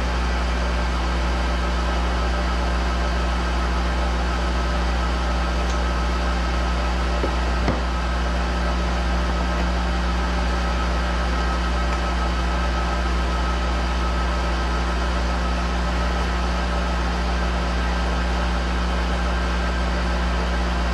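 Monarch 10EE lathe running steadily: a constant low hum with a thin, high whine above it. One light click about eight seconds in.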